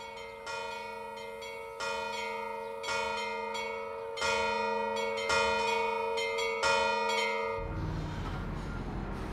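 Church bell tolling: about six slow, evenly spaced strokes, each ringing on and each louder than the one before. Near the end a low engine rumble comes in under the ringing.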